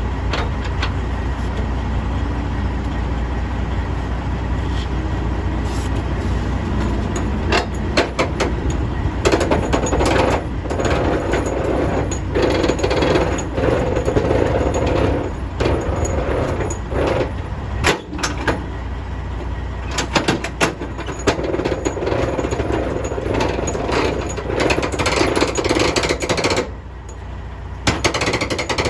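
A power tool hammering rapidly in two long bursts of several seconds each, with scattered sharp metal knocks, over a steady low engine rumble.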